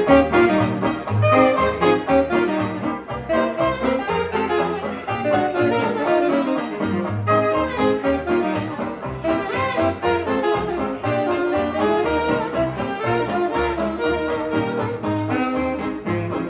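Small hot jazz band playing live in 1920s style, with horns out front over banjo and string bass.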